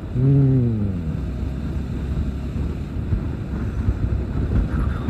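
Motorcycle under way: a steady low rumble from the engine and road, with wind buffeting the microphone.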